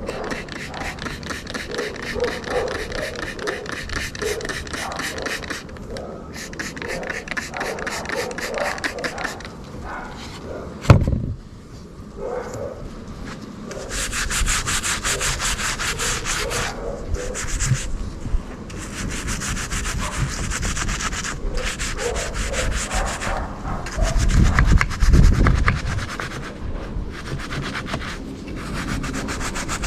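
Fast back-and-forth hand scrubbing on a metal car hood hinge, cleaning it up, in runs of strokes with short pauses. A sharp knock comes about eleven seconds in, and heavier low thumps around twenty-five seconds.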